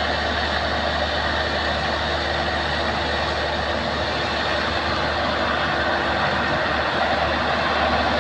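A heavy engine running steadily at an even speed, with a strong low hum under a dense mechanical noise.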